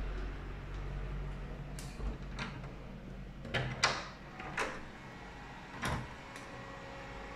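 Metal doorknob turning and a wooden door's latch clicking as the door is opened: a string of sharp clicks and knocks, the loudest about four seconds in, over a low hum that drops away partway through.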